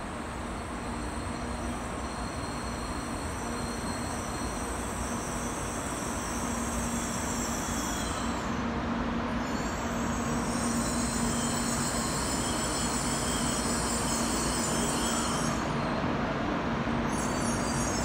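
N700-series Shinkansen train pulling slowly into the platform to stop, its running noise growing steadily louder as the front cars draw alongside.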